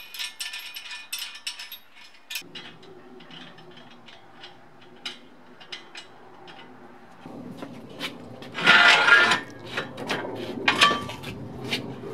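Tyre levers clicking and scraping against the wheel rim as the second bead of a car tyre is levered on by hand. A rapid run of clicks comes first, then scattered clinks, with a loud scraping rush about two thirds of the way through.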